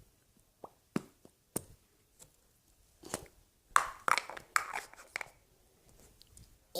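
Irregular small clicks, taps and crackly handling noises at close range, with a denser cluster about three to five seconds in.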